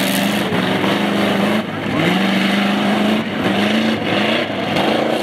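Off-road pickup truck's engine revving under throttle, its pitch climbing, holding and dropping several times.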